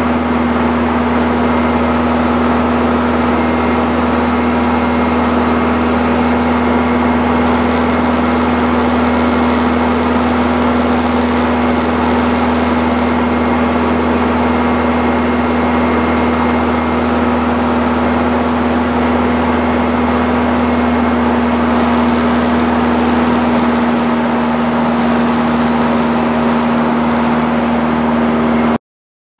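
Cabin drone of the MS.880B Rallye's four-cylinder air-cooled Continental O-200 engine and propeller running steadily at reduced power in flight, heard inside the cockpit with airflow noise. The sound cuts out completely for about half a second near the end.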